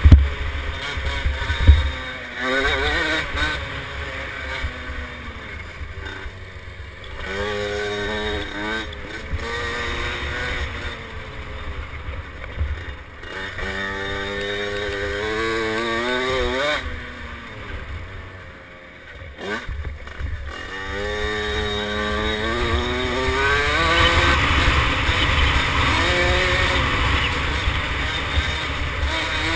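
KTM 50 SX two-stroke mini dirt bike engine revving up and easing off again and again, its pitch climbing in repeated sweeps, with wind buffeting the microphone and a few knocks near the start.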